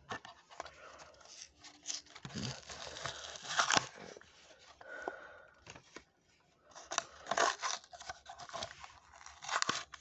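Matchbox blister pack being opened by hand: the cardboard backing card tearing and the clear plastic blister crinkling, in irregular scratchy bursts with short pauses between.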